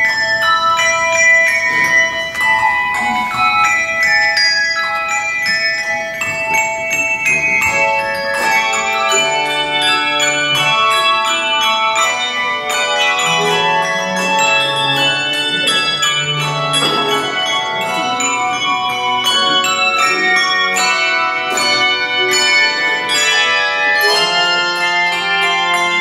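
Handbell ensemble playing: many bells struck in quick runs, their notes ringing on over one another, with low bass bells joining about nine seconds in.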